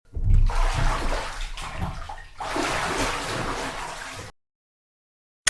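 Running, splashing water, about four seconds long with a brief lull in the middle, cutting off suddenly; a short burst of the same sound comes at the very end.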